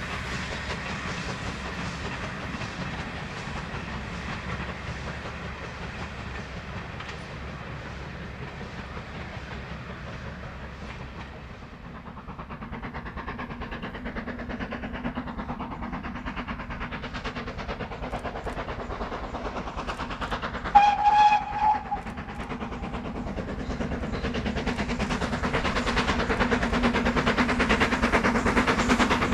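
Steam locomotive and train running, fading at first and then growing steadily louder as it approaches. About two-thirds of the way through, a short two-pulse blast on the locomotive's whistle.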